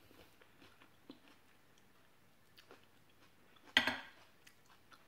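Faint chewing and small clicks of someone eating and peeling longan fruit by hand, shells and seeds tapping a glass plate, with one short, louder noise just under four seconds in.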